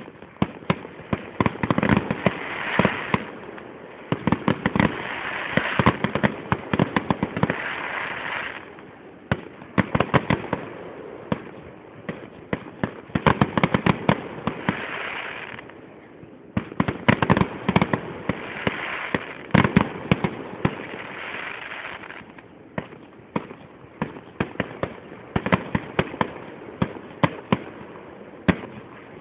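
Aerial fireworks display: shells bursting in the sky with dense, rapid cracks and crackling, starting suddenly and coming in several waves that thin out toward the end.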